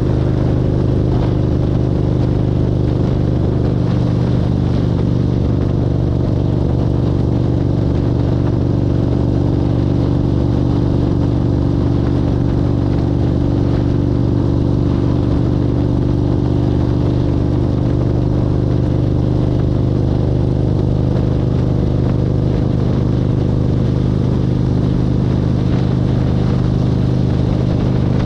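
Inside a car cruising at a steady highway speed: a steady drone of engine and tyre noise with a few fixed low hum tones, unchanging in pitch and level.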